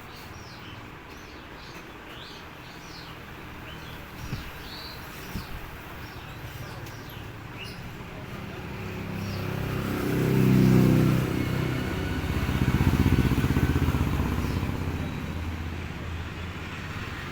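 A motor vehicle engine passing close by, building from about eight seconds in, loudest around ten to eleven seconds, and swelling again a second later before fading. Small birds chirp through the first half, with a couple of light knocks.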